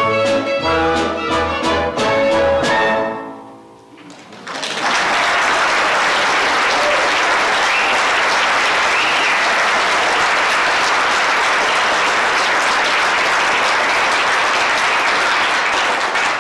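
A small ragtime band of violins, cello, double bass, trombone and trumpet plays its final bars and stops about three seconds in. After a brief pause the audience applauds steadily for about twelve seconds.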